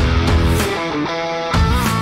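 Background music led by guitar, with bass and a few drum hits.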